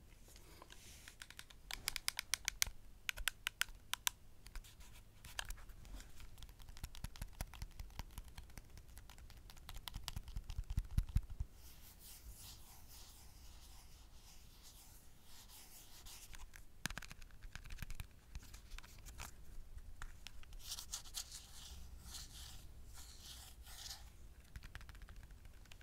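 Close-miked tapping and scratching on the casing of a Creative Zen Vision:M MP3 player, in quick runs of light clicks with quieter gaps and a short stretch of low handling rumble near the middle.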